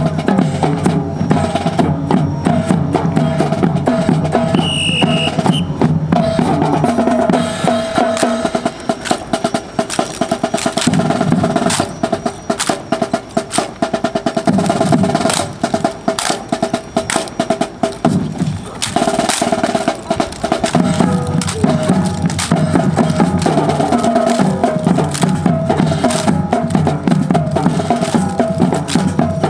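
Marching drum corps playing a fast snare-drum cadence with drum rolls.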